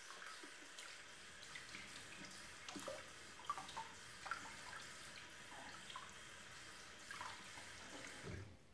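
Water running steadily with faint small splashes. The hiss starts abruptly and cuts off near the end.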